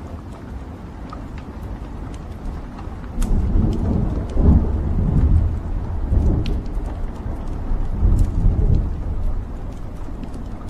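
Wood logs burning in a fireplace, crackling with scattered sharp pops over a low rumble of the fire. The rumble swells and gets louder from about three seconds in, then eases off near the end.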